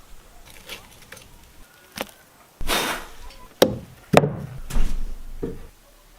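Wood being struck with hand tools: about six irregular chopping knocks spread over a few seconds, with a short noisy rush among them.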